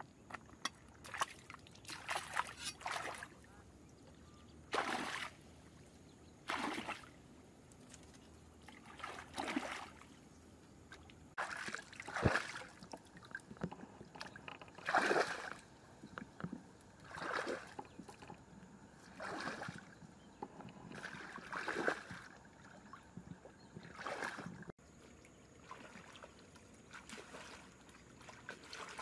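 Water sloshing and splashing in repeated strokes, one every second or two, as something moves through shallow lake water.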